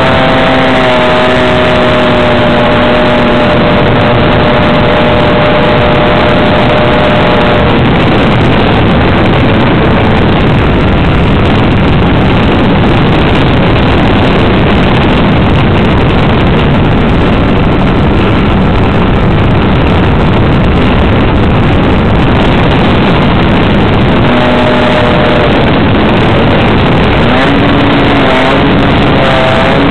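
Motor and propeller of a radio-controlled model Sopwith Camel in flight, heard loud and close from the airframe together with heavy wind rush over the microphone. A steady motor tone is clear at first and sinks into the wind noise after about eight seconds. It comes back near the end, wavering in pitch.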